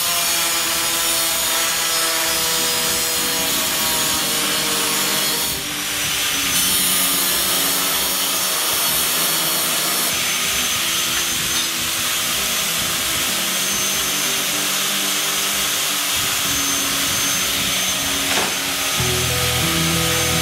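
Angle grinder with a thin grinding disc cutting into a flat stainless steel bar, widening a slot: a steady harsh grind that eases briefly a couple of times. Background music plays underneath.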